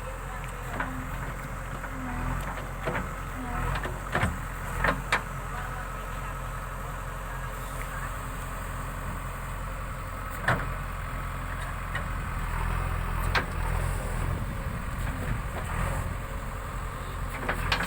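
JCB 3DX backhoe loader's diesel engine running steadily, with a thin steady whine above it and several sharp knocks and clunks: a few seconds in, around the middle, and near the end.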